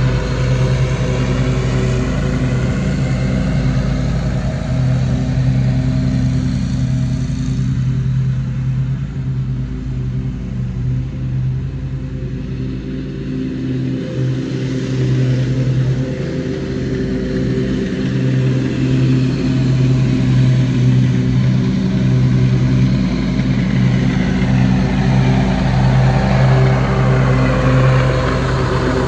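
Zero-turn riding lawn mower's engine running at a steady speed while mowing, fading as the mower moves away and growing louder as it comes back close near the end.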